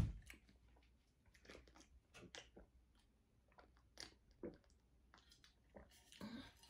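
Faint, scattered mouth noises close to the microphone as coffee is sipped from a cup: a few soft clicks and sips with quiet gaps between them.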